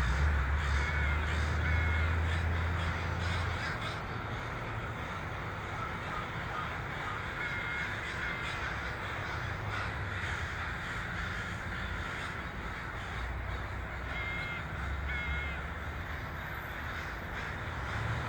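A huge flock of crows cawing continuously, hundreds of calls overlapping into a dense chorus. A low rumble runs underneath for the first few seconds.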